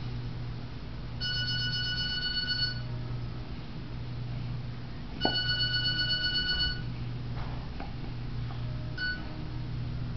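An electronic ringing tone sounds in bursts of about a second and a half, twice, then a third that is cut short near the end, over a steady low hum.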